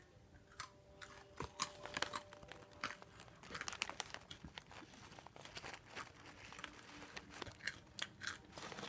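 Hot Cheetos being bitten and chewed close to the microphone: a run of irregular, crisp crunches.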